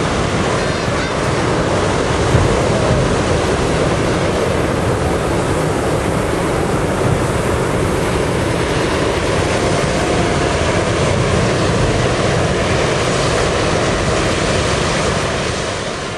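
Steady, loud roar of a hot air balloon's propane burner firing into the envelope during inflation.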